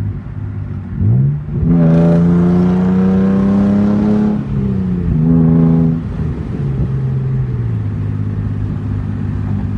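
Hyundai Genesis 3.8-litre V6 through a newly fitted cat-back true dual exhaust with two glass-pack mufflers, accelerating hard as heard from inside the car. A short rise in pitch about a second in, then a long loud pull with slowly climbing pitch, a brief dip, another surge, then the pitch falls away to a steady low drone.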